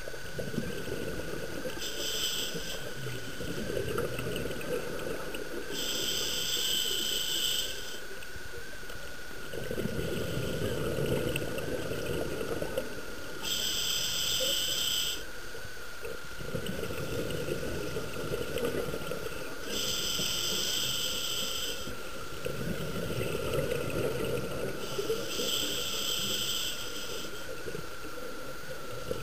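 Scuba diver breathing underwater through a regulator: five hissing breaths in, a few seconds apart, with bubbling exhaled air between them.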